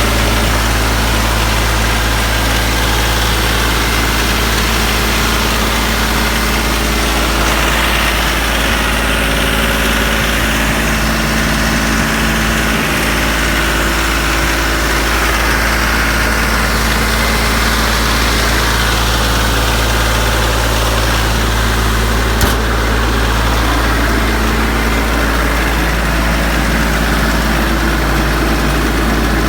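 Branson 3520h tractor's diesel engine idling steadily, test-run just after a valve lash adjustment meant to cure a tapping from the valves. One short sharp click is heard about two-thirds of the way through.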